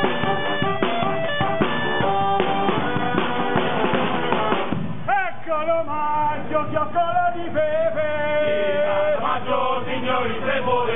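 Street band of saxophones, trombone and bass drum playing a fast, loud tune. Just under halfway through the drumming stops and the band moves into long held notes.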